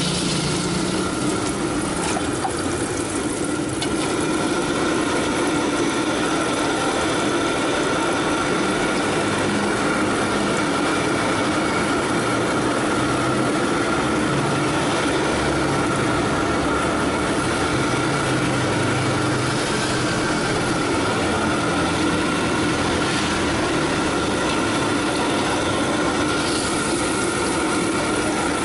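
Gas wok burner running with a steady roar under the wok, with an egg frying in hot oil in the wok.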